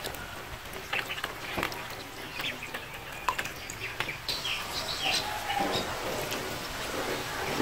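Ducklings peeping: many short, high chirps, coming thicker from about halfway through, with a few light clicks among them in the first half.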